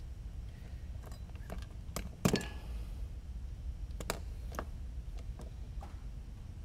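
Scattered light clicks and taps from small-scale bench work, about eight in all, the sharpest a little over two seconds in, over a low steady hum.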